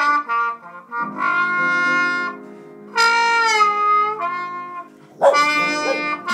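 Slide trombone playing long jazz notes over piano, with a falling slide about three seconds in. About five seconds in a King Charles Cavalier spaniel starts howling along.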